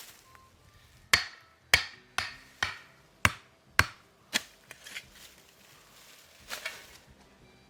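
Hand tool striking wood seven times in a steady rhythm, about two blows a second, stopping after about four and a half seconds. A brief rustle follows near the end.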